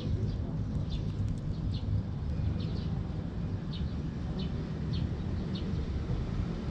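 Short bird chirps, one every half second to a second, over a steady low rumble.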